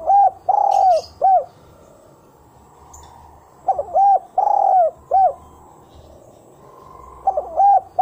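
Spotted dove cooing its repeated song: a phrase of a few short coos, one longer drawn-out coo and a short closing coo, given three times about three and a half seconds apart. Faint high chirps of a small bird sound twice.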